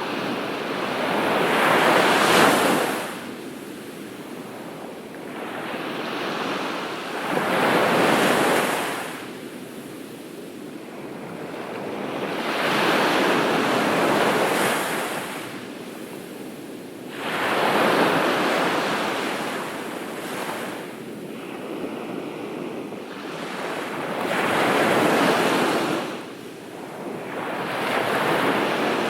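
Ocean waves breaking on a beach: surges of surf every five or six seconds, each swelling up and washing back before the next.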